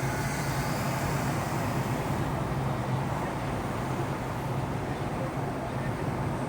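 Steady running noise of a motor vehicle: an even rumble with a constant low hum, unchanging throughout.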